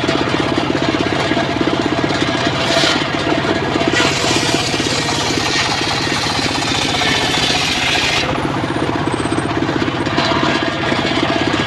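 Engine-powered mobile circular saw running with a fast, steady pulse. From about four to eight seconds in a loud hiss rises over it as the blade cuts through a log, then drops away.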